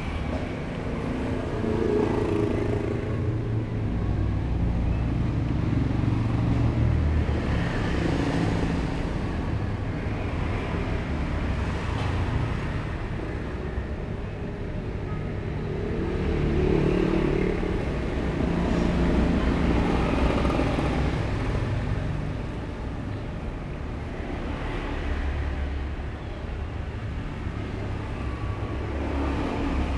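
Street traffic passing on the road outside, motor scooters and cars, a steady low rumble that swells and fades as each vehicle goes by.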